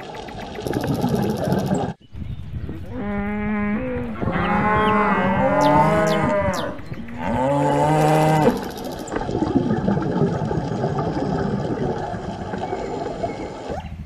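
Cattle mooing: three drawn-out moos in a row, a shorter one about three seconds in, a long one after it and a third ending near the middle, over a noisy outdoor background.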